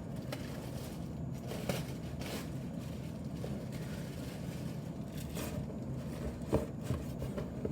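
Handling of a tool bag and its packaging during unboxing: a few scattered clicks and scrapes over a steady low hum.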